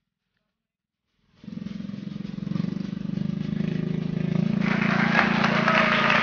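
About a second of silence, then a small boat's engine running steadily. It gets louder from about halfway through.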